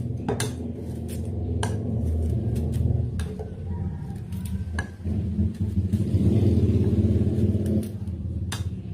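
Scattered clicks and clinks of bilimbi fruit being cut up and dropped into a blender jar, over a steady low hum.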